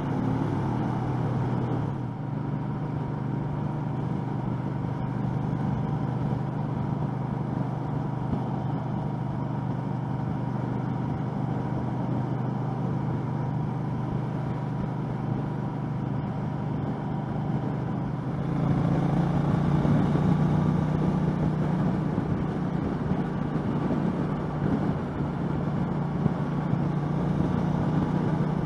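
2013 Triumph America cruiser's 865cc parallel-twin engine running at steady freeway speed, with wind and road noise at a helmet microphone. About two-thirds of the way through, the engine note rises a little and gets louder.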